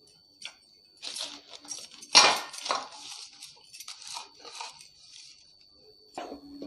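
Butter paper rustling and crinkling as it is pressed into an oiled metal cake tin, with light metallic clinks; the loudest crinkle comes about two seconds in.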